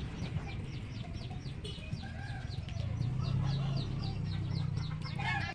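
Birds chirping: a quick, even run of short, falling high chirps, about three a second, over a low steady rumble.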